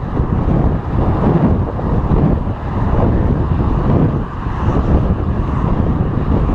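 Wind buffeting an action camera's microphone on a moving bicycle: a loud, gusty rumble with no clear pitch.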